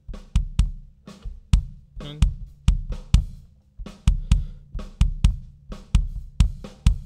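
Recorded kick drum track played through the mixer's kick channel, about two hits a second, each a sharp attack with deep low end, with the neighbouring snare drum bleeding in and ringing behind it. The kick is being compressed for more attack and punch.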